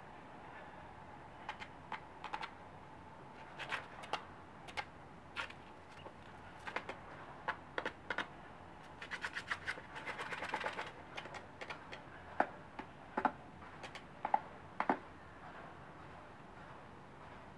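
Japanese quail dust bathing in a plastic tub of sand: irregular clicks and patters of flicked sand hitting the tub, with a dense flurry of rapid clicks about nine to eleven seconds in.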